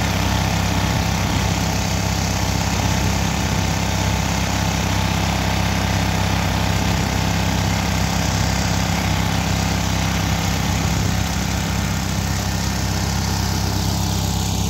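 Motor-driven grain mill running steadily with a loud, even drone and grinding noise as it crushes finger millet into flour.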